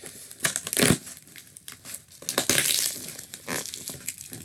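Hands digging through polystyrene packing peanuts in a cardboard shipping box: irregular rustling and crunching with sharp clicks, and louder bursts just before the first second and again about two and a half seconds in.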